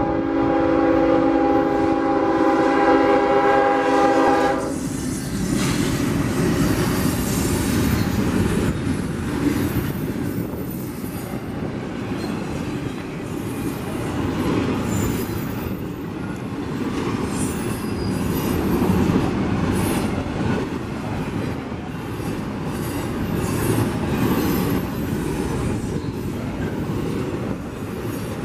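Diesel locomotive air horn sounding a chord of several notes in one long blast that cuts off about four and a half seconds in. Then a double-stack intermodal freight train rolls past with a steady rumble and wheel clatter, with short high-pitched wheel squeals now and then.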